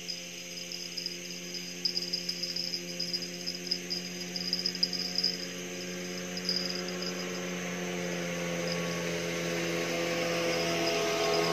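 A small boat's engine running on the river, drawing closer and growing steadily louder, its pitch rising slightly near the end. High pulsing chirps sound over the first half.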